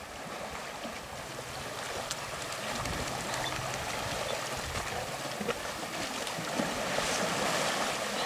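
Water splashing and churning as a group of Asian elephants roll and bathe in a shallow river, over the steady rush of the current; the splashing grows louder near the end.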